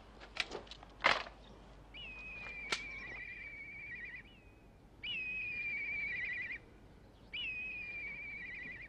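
Black kite calling: three long whistled calls a couple of seconds apart, each a high note that drops and runs on as a quavering trill. A few sharp clicks come before them, the loudest about a second in.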